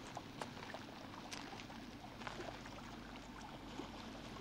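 Faint riverside ambience: a steady low rush of flowing water, with a few light clicks and rustles.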